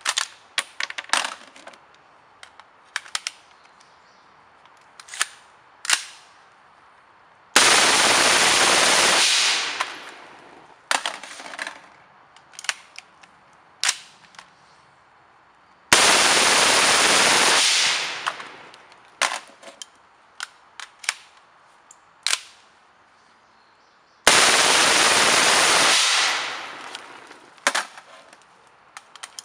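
Suppressed 10.5-inch M16 firing three long full-auto bursts through a Rugged Surge 762 silencer, each burst lasting under two seconds, with sharp clicks and knocks between the bursts.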